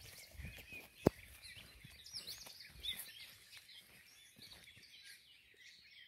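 Faint dawn chorus of songbirds: several birds chirping and warbling at once. A single sharp click about a second in.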